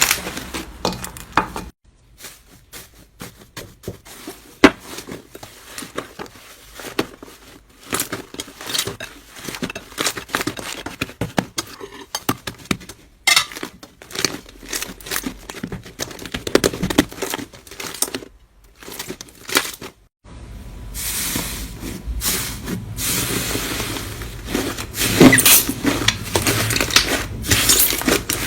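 Slime being squeezed, poked and stretched by hand, giving irregular sticky clicks, pops and crackles, with a couple of abrupt cuts between clips.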